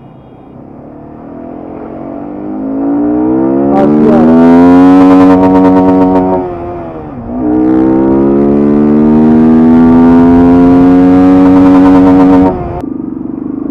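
Yamaha R15M's 155 cc single-cylinder engine, breathing through a newly fitted high-performance air filter, accelerating hard: the pitch climbs, dips briefly about six and a half seconds in at an upshift, climbs again and holds, then falls away suddenly near the end as the throttle is shut.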